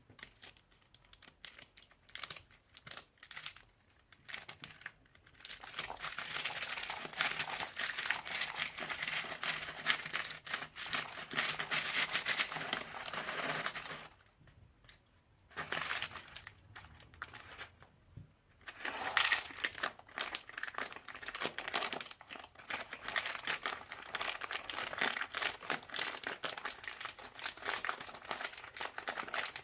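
Crunchy slime with beads mixed in, squeezed and pressed by hand: dense crackling and popping. A few scattered clicks at first, then long runs of crackling broken by two short pauses.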